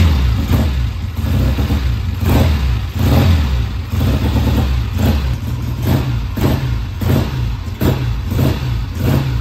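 1968 Triumph TR6R's 650 cc parallel-twin engine, kick-started and running, with a steady beat that pulses about twice a second. It is being run to bring the oil up to temperature before an oil change.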